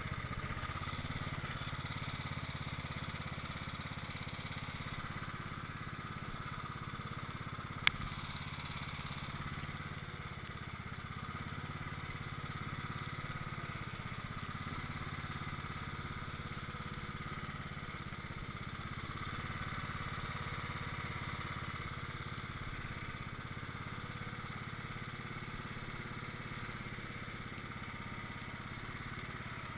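Cub Cadet XT1 lawn tractor's engine running steadily as the tractor pushes heavy snow with its front plow blade. One sharp click about eight seconds in.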